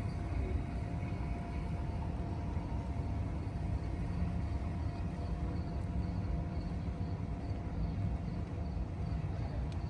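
Steady low rumble of outdoor city ambience, with a few faint steady hum tones above it and no distinct events.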